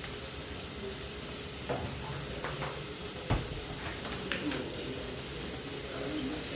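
Pool balls and cue knocking on a sinuca table during a shot: a sharp knock about three seconds in, then lighter clicks about a second later, over a steady background hiss.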